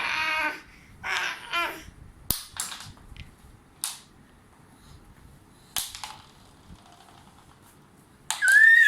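A baby makes short babbling vocal sounds at the start, then several sharp clicks and taps from crayons being handled. Near the end comes a loud, high-pitched squeal, the loudest sound.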